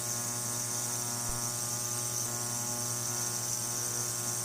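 Ultrasonic parts cleaner running: a steady electrical hum with a high hiss above it.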